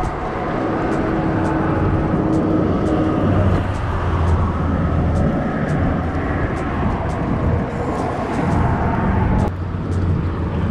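Steady rumble of road traffic passing close by, with a faint regular ticking about twice a second over it.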